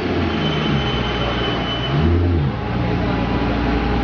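Maserati GranTurismo's V8 engine running, its revs rising and dropping again about two seconds in, with street traffic around it.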